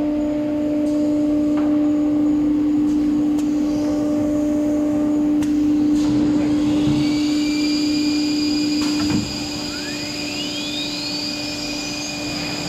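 ATC CNC router running: a steady whine from the spindle and dust extraction while it machines a board. About nine seconds in the sound drops quieter and a rising whine sweeps upward.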